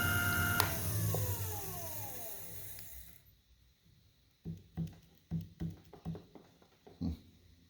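A shop power tool's motor switched off with a click and winding down, its whine falling in pitch and fading over about two and a half seconds. After a short pause, six or seven light, sharp knocks follow.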